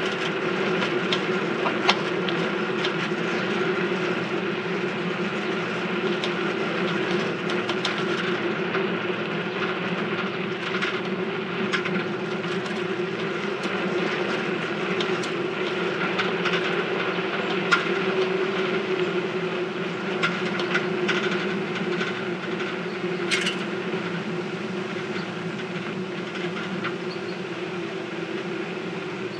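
A noisy rented bicycle being ridden. It gives a steady whirring drone with a few fixed tones, and irregular rattles and clicks run through it.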